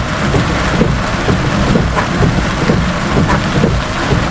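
Heavy thunderstorm rain falling on a car, with a steady low rumble of the car underneath.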